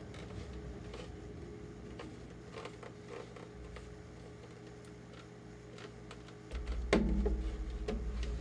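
A rag rubbing and wiping paint over an ABS plastic armor piece to weather it, with faint rustling and small knocks as the plastic is handled, over a steady low hum. A louder low rumble sets in about six and a half seconds in, with a knock soon after.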